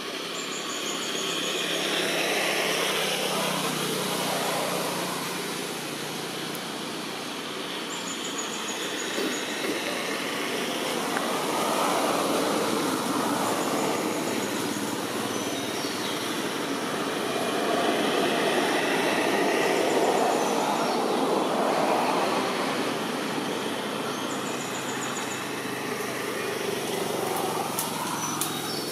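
Outdoor background noise that swells and fades in several slow waves, each several seconds long, with a few faint high chirps now and then.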